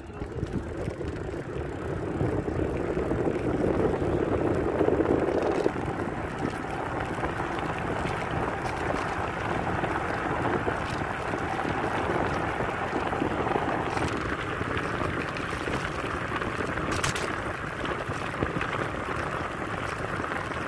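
Steady wind rush and road noise of travelling along an asphalt road. It is loudest in the first few seconds, with a few faint clicks.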